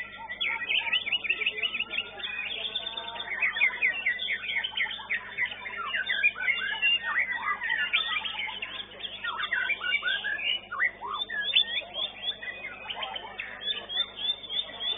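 White-rumped shama (murai batu) singing in a song contest: a fast, unbroken run of varied whistles and chirps, heard through a CCTV camera's microphone.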